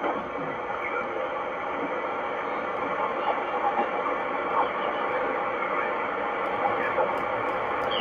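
Shortwave receiver audio on the 40-metre amateur band: a steady hiss of band noise with faint, garbled voices of distant stations coming through as the set is tuned.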